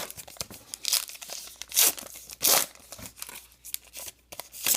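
Baseball card pack wrapper being torn open and crinkled, in a few short crackling rips.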